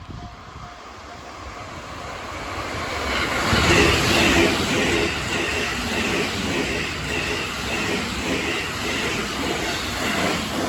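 A train going by at a railway level crossing: its noise builds over the first few seconds, holds steady while it passes, and fades near the end.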